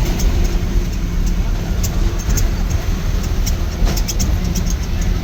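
A moving bus's engine and road noise: a steady low rumble, with frequent short rattles and clicks.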